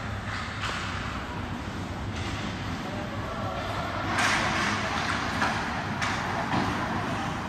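Ice hockey game sounds on the rink: a steady scraping hiss of skate blades on the ice, swelling louder about four seconds in, with a few sharp knocks and voices in the background.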